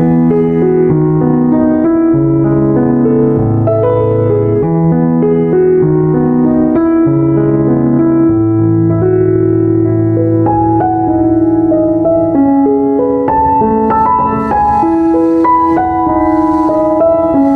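Background music: a piano melody over a low bass line, at a steady pace.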